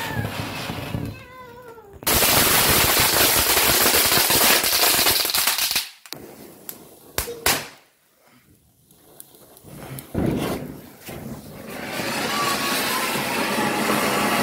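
Diwali ground fireworks spraying sparks with a loud rushing hiss that starts about two seconds in and cuts off suddenly about six seconds in, followed by a couple of sharp cracks. A short loud burst comes near ten seconds, and the hiss returns for the last few seconds. High wavering squeals sound over the fireworks at the start.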